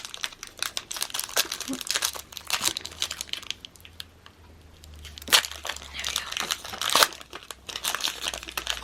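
Foil booster-pack wrapper of Pokémon trading cards crinkling and tearing as it is opened, with a quieter pause around the middle and two sharper crackles later on.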